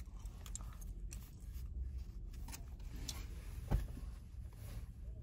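Low, steady rumble of a car engine idling, heard from inside the cabin, with faint scattered clicks and rustles and a single thump about three and a half seconds in.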